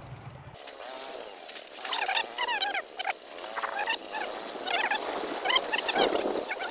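Small birds chirping and chattering in short, repeated bursts of quick squeaky calls. A low motorbike engine hum cuts off about half a second in.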